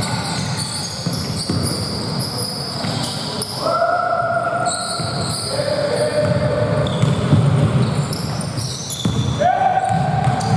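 Basketball game play: the ball bouncing on the court, with sneakers squeaking and players calling out.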